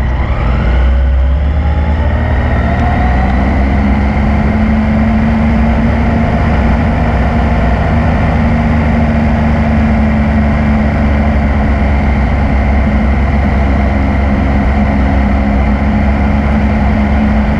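Yamaha MT-09's three-cylinder engine: its pitch shifts over the first couple of seconds as the revs settle, then it runs steadily at a constant speed, likely idling.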